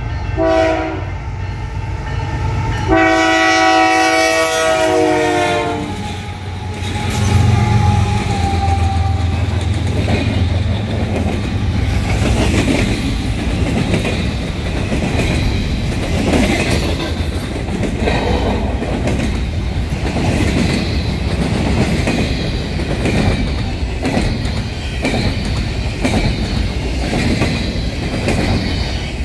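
A diesel locomotive's air horn sounds a short blast and then a long one of about three seconds, a chord of several notes, ending the warning signal for a road crossing. About seven seconds in, the GE diesel locomotives (AC4400CW and ES44AC) drone past. Then double-stack container well cars roll by with a steady, rhythmic clickety-clack of wheels over the rail joints.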